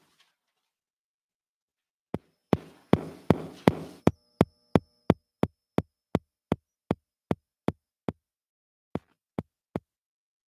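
A run of sharp knocks, about three a second, with a short burst of noise under the first few. They stop a little after eight seconds in, and three more follow near the end.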